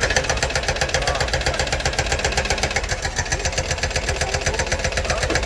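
Doosan 255LCV excavator's diesel engine running, with a rapid, even clatter of many beats a second.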